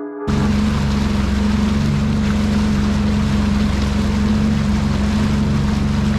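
Sea-Doo personal watercraft engine running at a steady pitch under way, with a constant rushing hiss of water and wind. It comes in suddenly just after the start, as background music cuts off.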